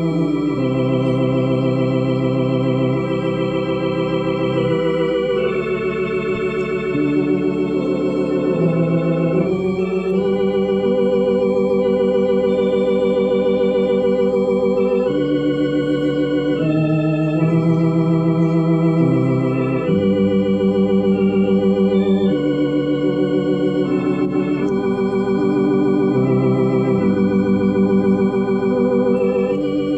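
Organ playing a slow hymn stanza as an altar-call invitation: full sustained chords that change every second or two, with a slight wavering vibrato.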